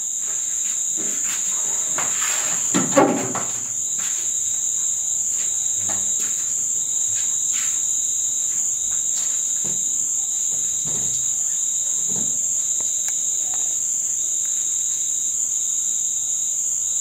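Insects trilling steadily at a high pitch, with a brief louder sound about three seconds in.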